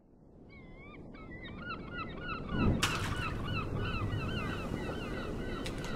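A flock of birds, likely waterfowl, calling over and over in short, overlapping calls, fading in at the start. A thump and a sharp click come a little before the halfway point.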